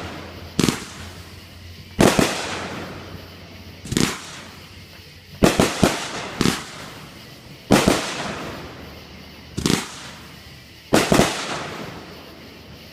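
Fireworks going off: a string of sharp bangs about every one to two seconds, a couple of them in quick pairs, each fading out over a second or so.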